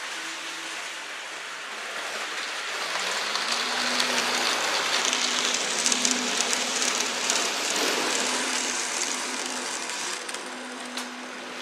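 N-scale model freight train running on the layout: a soft rushing rattle of small wheels on the track with a faint motor hum, swelling as the train passes close by in the middle and easing off again near the end.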